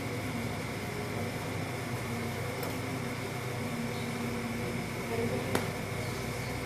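Steady room hum with a thin high tone running through it, like a fan or air conditioner, and one sharp click about five and a half seconds in.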